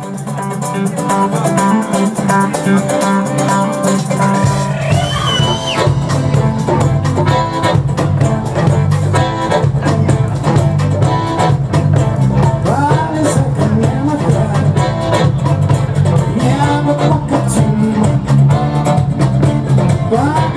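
Band music with guitar and a gliding melody line, starting suddenly.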